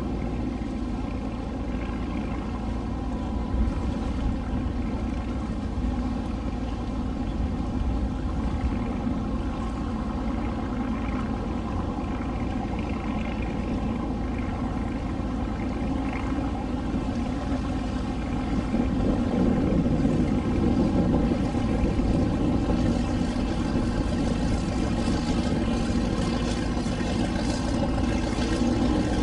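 Motorboat engine running steadily, a continuous hum of even tones over a low rumble. It grows louder about two-thirds of the way through.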